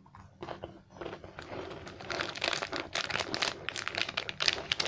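Plastic snack wrapper crinkling and rustling as it is torn open and handled, a dense run of irregular crackles that grows louder about a second in.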